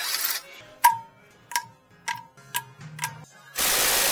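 A burst from a power tool ends just as this begins. Then come five light metallic clinks, each with a short ring, spaced about half a second apart. Near the end a power tool starts running again, loud and steady.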